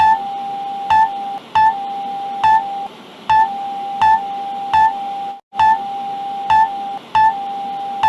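Emergency alert system alarm: a steady mid-pitched tone over static hiss, with a short higher beep about every 0.8 seconds. The tone breaks off briefly a few times and drops out completely for a moment about five and a half seconds in.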